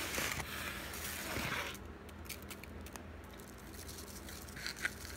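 Corn meal pouring through a funnel into a plastic water bottle: a soft, steady hiss that fades out about two seconds in, followed by a few faint ticks near the end.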